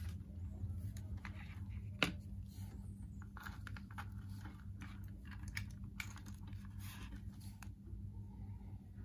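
Handling sounds as a multimeter and its test leads are set out on a cutting mat: one sharp knock about two seconds in, then a run of light clicks and rustles that dies away near the end. A steady low hum runs underneath.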